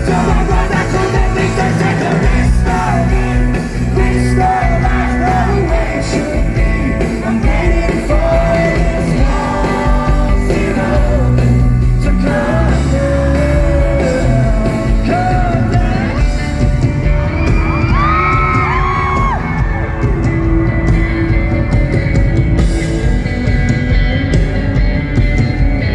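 Live rock song played by a band with a lead singer, recorded loud from the audience, with crowd voices mixed in.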